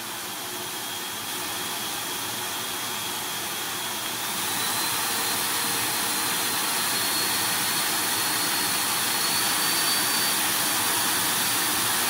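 2,400-watt PETACARE dog force dryer's blower running, a rush of air with a thin motor whine. It steps up louder about a second in, and again about four seconds in with the whine rising higher, as the fan speed is raised.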